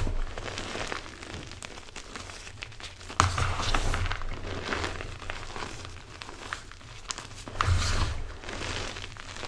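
MagKing gym chalk blocks topped with cornstarch being squeezed and crushed by gloved hands: irregular crunching and crumbling, strongest about three seconds in and again near eight seconds, with small crackles between.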